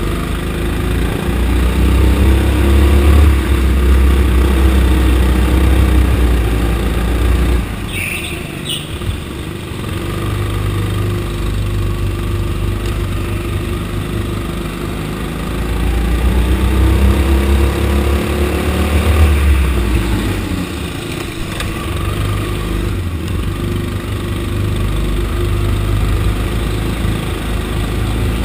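Small go-kart engines running under racing throttle, rising and falling as the kart accelerates and slows, louder in two stretches early and midway, with a brief high squeal about eight seconds in.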